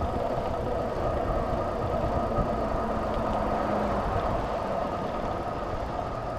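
Mountain bike rolling along an asphalt road, heard through a handlebar-mounted camera: a steady hum from the moving bike over a low rumble of road vibration and wind.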